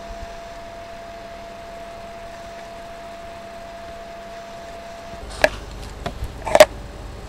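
Steady faint electrical hum with a thin high whine, which stops abruptly about five seconds in. A few sharp clicks and knocks follow close to the microphone, the loudest near the end.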